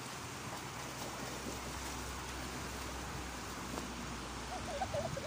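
Steady rush of river water, with light splashing from swimmers.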